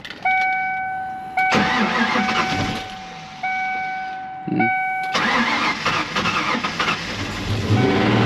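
A car engine being started after an oil change: a dashboard warning chime, then an engine start about a second and a half in that fades, and a second start a few seconds later that keeps running and settles toward idle. There is a brief knock on start-up that the owner takes for worn rod or crank bearings.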